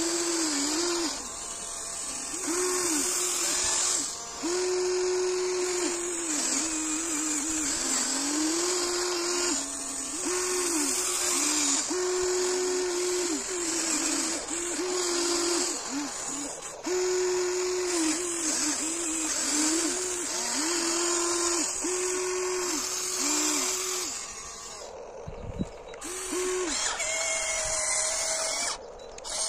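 Huina 1594 RC excavator's hydraulic pump motor whining in repeated bursts as the controls are worked, its pitch sagging under load while it digs into compacted stone, over a constant hiss. The whine mostly stops about twenty-five seconds in, then returns briefly.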